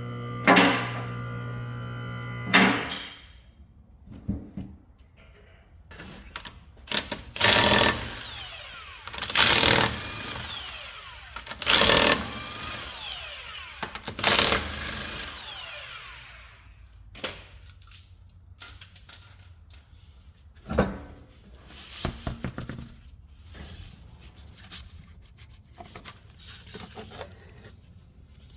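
A steady hum at first, then five short bursts from an impact wrench about two seconds apart, working a shock absorber's mounting nut loose, followed by scattered clanks of tools and parts.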